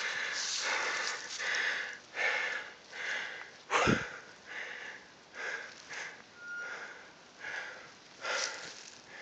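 A person panting hard, with quick, even breaths a little more than one a second. A single sharp knock comes about four seconds in.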